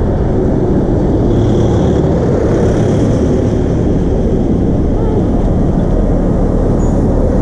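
Loud, steady rumbling noise of wind buffeting the camera microphone, with no rhythm or pitch to it.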